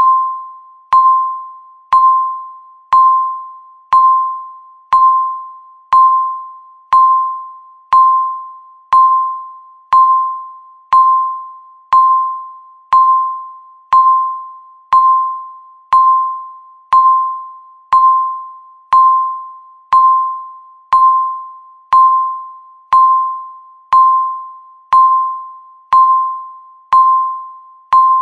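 Countdown timer beep sounding once every second: a single clear electronic tone that starts sharply and fades away before the next one, marking each second left.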